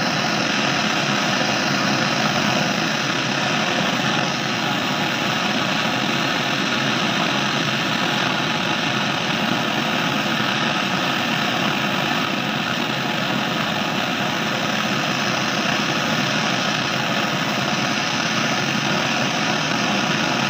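Steady hiss of a butane canister torch's flame heating a copper pipe joint for brazing, the copper being brought up to red heat before the brazing rod is applied.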